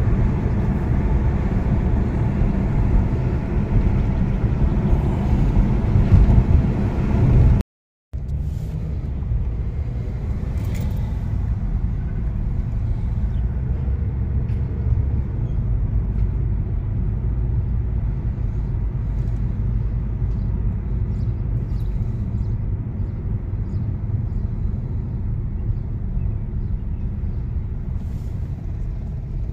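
Steady road and engine rumble inside a moving car's cabin, with a brief cut to silence about eight seconds in.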